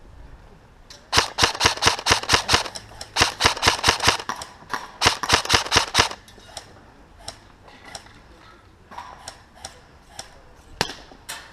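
Airsoft guns firing: three loud rapid bursts of shots, each about a second long, starting about a second in, followed by fainter scattered single shots.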